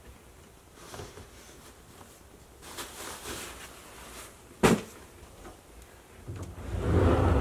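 Bags and fabric rustling as they are pulled off a closet shelf, with one sharp thump about two-thirds of the way through. A louder, low rumble of rustling comes near the end.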